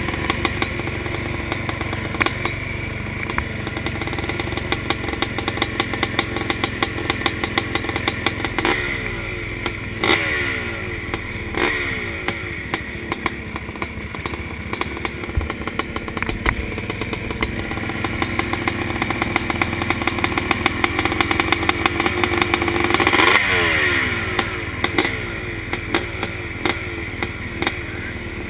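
A line of motocross bike engines idling and clattering together, with riders blipping the throttle now and then. The loudest moment comes about three-quarters of the way through: a rev climbs and then falls away sharply.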